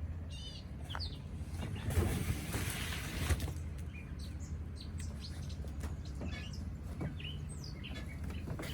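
Small birds chirping in short, quick calls, a rapid series near the start and scattered chirps after, over a steady low hum.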